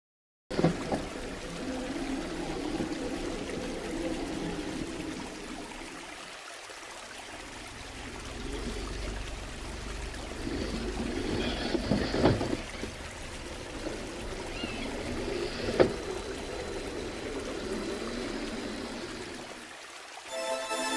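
Shallow stream water running over rock, with a couple of sharp knocks about twelve and sixteen seconds in. Music begins right at the end.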